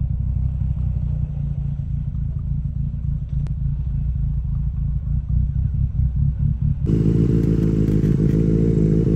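Benelli TNT 600i motorcycle's inline-four engine running steadily while the bike is ridden. About seven seconds in, the engine note changes abruptly to another steady, slightly higher note.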